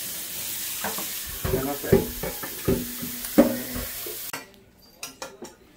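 Steady sizzling hiss of food cooking on the stove, with a few knocks. The hiss cuts off suddenly about four seconds in, leaving a few light clicks.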